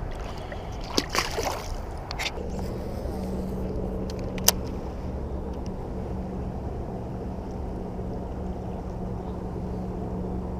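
Steady low hum of a small motor with one constant tone, over a low wash of water and wind noise. A few sharp clicks and knocks come in the first couple of seconds, and one more about four and a half seconds in.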